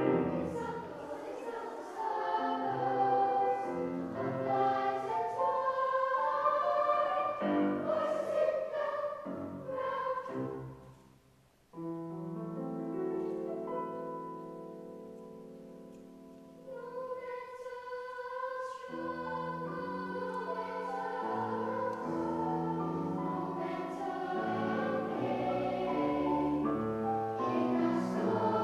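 Children's choir singing in several parts with piano accompaniment. About eleven seconds in the sound breaks off almost to silence; a held chord then fades for a few seconds before the voices come back in.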